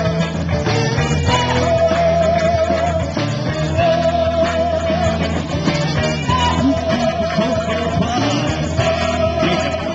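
Rock-and-roll song with a singer holding long, wavering notes over electric guitar.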